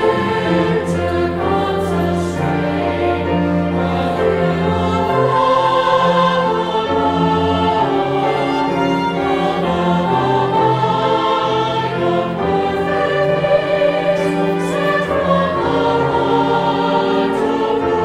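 Mixed choir singing in sustained chords, with instrumental accompaniment.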